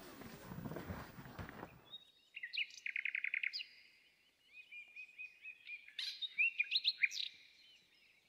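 Songbirds singing: a rapid trill, then strings of short whistled chirps and rising notes. Before that, about two seconds of footsteps and scraping from an inflatable boat being dragged along a dirt path, which cut off abruptly.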